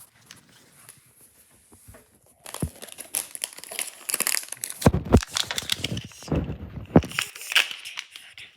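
Packaging being torn and crinkled by hand as it is pulled open, with a few low handling thumps near the middle.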